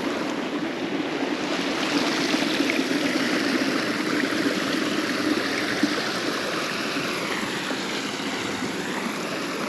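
Small hillside stream running steadily, a continuous rush of flowing water.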